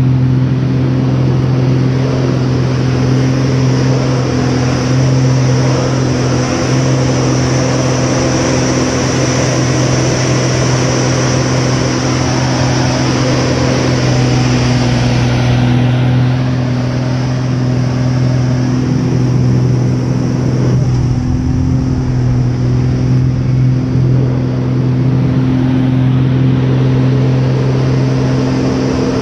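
Aerobatic airplane's piston engine and propeller running, heard from inside the cockpit during an aerobatic sequence: a loud, steady low drone with airflow hiss, its pitch staying nearly constant throughout.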